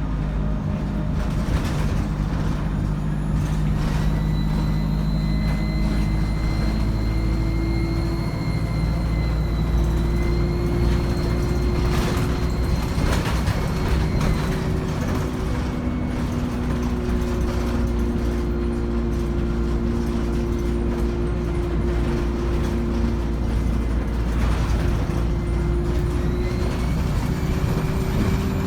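ADL Enviro 200 diesel bus with a three-speed Voith automatic gearbox, running under way with a high-pitched turbo and gearbox whine. The whine comes in a few seconds in, fades about halfway through and returns near the end, over a steady engine note with a few short knocks.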